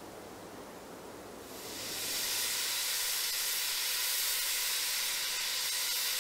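Steam tracked log hauler's boiler venting steam: a softer rushing gives way, about a second and a half in, to a loud, steady high-pitched hiss as steam blows out around the machine.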